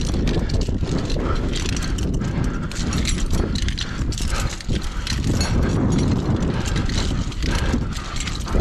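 Repeated metallic clanks and clicks of climbing harness hardware and gloved hands against a steel lattice cell tower during a climb, over a steady low rumble of wind buffeting the microphone.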